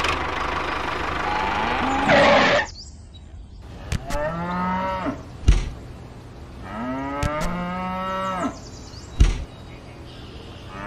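Cow mooing: a harsh, noisy call at the start, then two long, drawn-out moos about four and seven seconds in. Two short sharp knocks fall between and after the moos.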